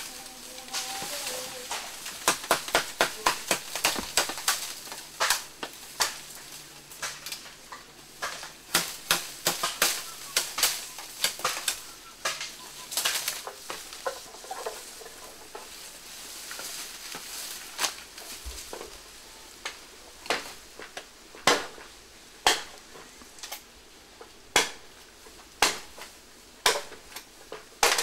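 Bamboo being cut and handled with a machete: sharp cracks and knocks of the stalks, with the snapping and crunching of dry bamboo litter. Near the end there is a regular run of strokes about one a second.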